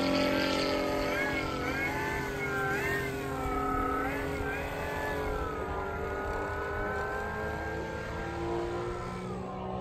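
Flite Test Monster Radial electric motor and propeller on a large RC Cessna model whirring as it taxis, the pitch rising and falling with the throttle and sliding down just before the end. A steady lower hum runs underneath.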